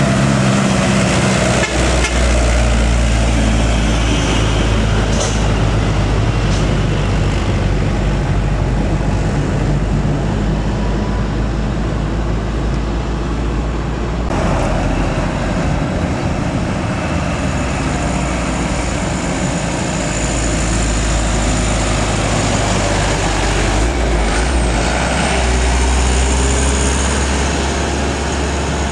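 Diesel engines of trucks, including a loaded Mitsubishi light truck carrying palm fruit, running as they pass close by, with tyre and road noise. The sound changes abruptly about fourteen seconds in, when a box truck and a motorcycle come through.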